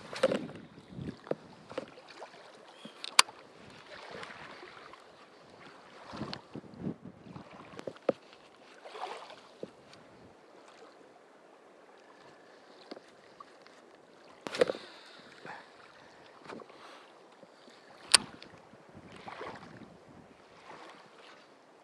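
Gusty wind buffeting the microphone in uneven bursts, with a few sharp clicks on top.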